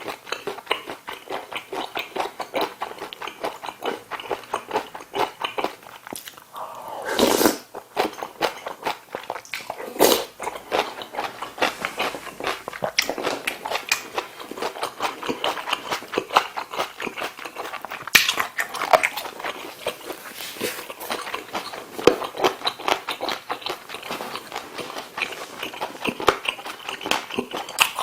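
Close-miked eating of kimchi stew and curry rice: continuous rapid wet chewing and mouth smacking, with a louder sound about seven seconds in and a few sharp knocks later on.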